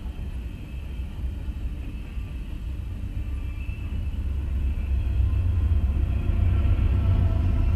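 Freight train rolling past, a steady low rumble of steel wheels on rail heard from inside a stopped car, growing louder about two-thirds of the way through.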